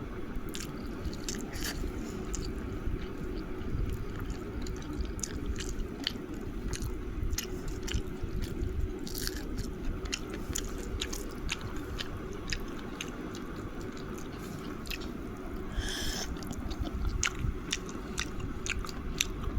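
A person chewing and biting food close to the microphone, with irregular short crunching clicks one or two times a second.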